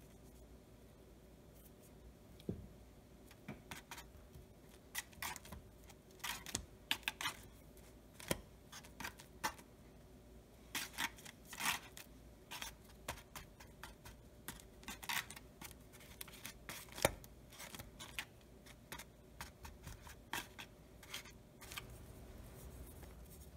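Disposable aluminium foil pan crinkling and clicking in short irregular crackles as hands press and shape soft bread dough inside it, with the soft rub of hands on floured dough.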